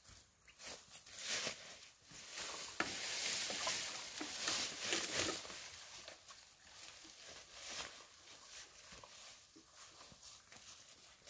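Dry bamboo leaves and undergrowth rustling, with footsteps and a felled bamboo pole being handled, loudest in the first half. Later come lighter rustles and small knocks as the long pole is lifted onto the shoulder.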